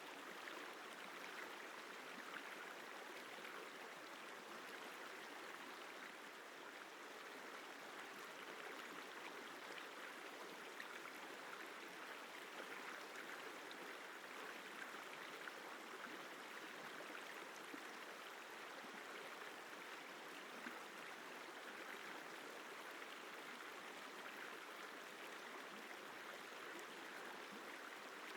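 Isar River water flowing: a steady, even rush of moving water with no breaks or changes.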